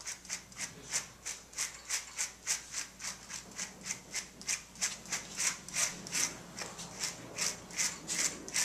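A slicker brush being stroked briskly through a dog's long, dirty coat, working dry cleaning powder through the hair to lift out the dirt: a steady rhythm of short swishes, about three a second.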